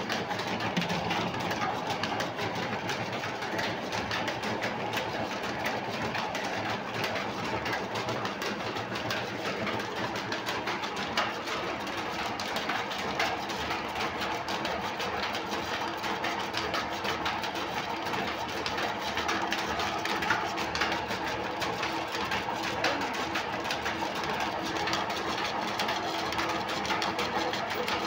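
Sardar 32-patti oil expeller running steadily, its screw press crushing seed with a fast, continuous mechanical rattle while oil drains from the chamber.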